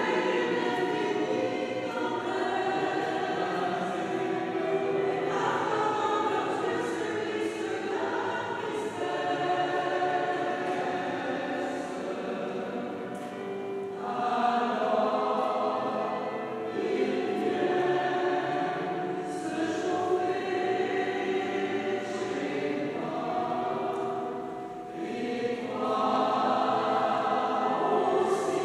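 Mixed choir of women's and men's voices singing together in held, sustained lines, with a short softer moment a few seconds before the end.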